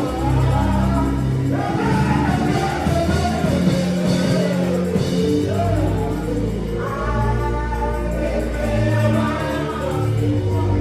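Gospel music with singing, a choir of voices over a steady bass and keyboard-like accompaniment.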